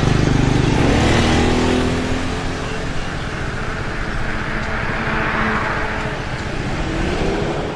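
Road traffic passing: a motor scooter's engine goes by close in the first couple of seconds, falling in pitch as it passes, then cars and a pickup truck drive past, one engine rising in pitch near the end.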